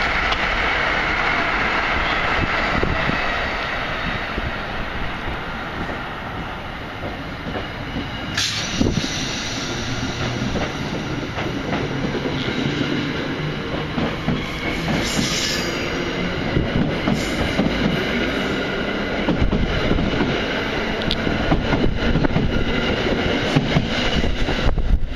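Passenger train passing the platform at speed: a steady rumble of steel wheels on rail with rapid clicking over the rail joints, a high wheel squeal in the first few seconds and a sharp clank about eight seconds in.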